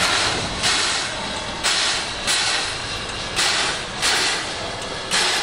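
Steam locomotive No. 8630 (JNR Class 8620) giving off rhythmic bursts of steam hiss as it stands on the turntable. There are seven bursts in uneven pairs, each about half a second long.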